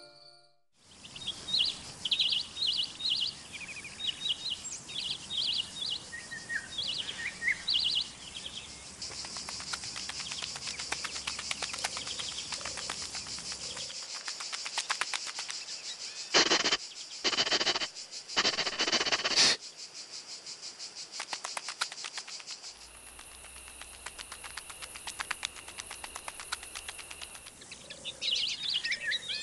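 Countryside nature sound: birds chirping for the first several seconds and again near the end, with a steady shrill insect drone through the middle. About halfway through, three loud brief noises stand out over it.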